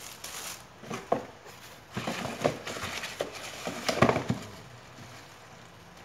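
Plastic packaging crinkling and rustling as small bagged parts are handled, in irregular bursts with a few sharp clicks, loudest about four seconds in and quieter near the end.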